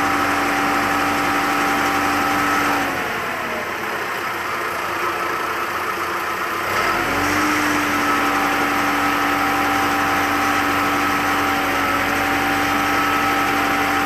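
Tracked remote-controlled aerial lift running, a steady whine over engine noise. The whine glides down and stops about three seconds in, then returns with a rising glide a few seconds later.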